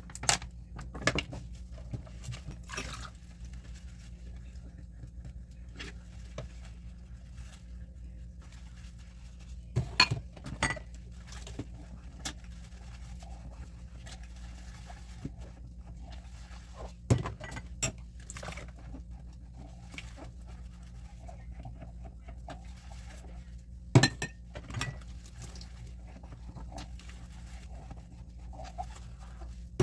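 Dishes and cutlery clinking and knocking as they are handled during washing, in scattered sharp knocks with a few louder ones now and then. A steady low hum runs underneath.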